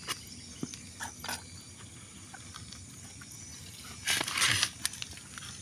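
Handling noises from a large Asian swamp eel being held on a concrete floor: a few faint clicks, then a short, louder scraping rustle about four seconds in.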